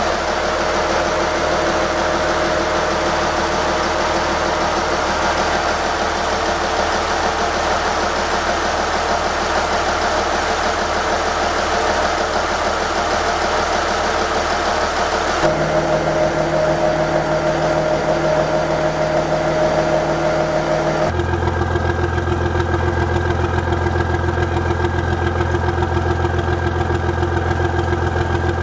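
Yanmar marine diesel engine idling steadily. Its note changes abruptly twice, ending on a deeper running note that pulses evenly.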